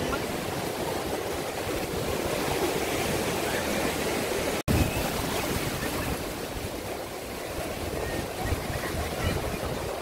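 Small waves breaking and washing onto a sandy beach, with wind buffeting the microphone. The sound cuts out for an instant a little before halfway.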